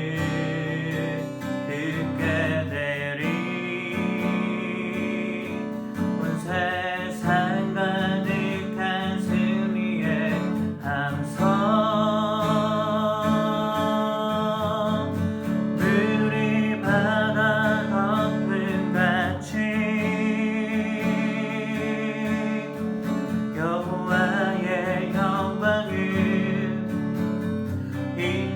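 Acoustic guitar playing a praise song: strummed chords under a wavering, sustained melody line.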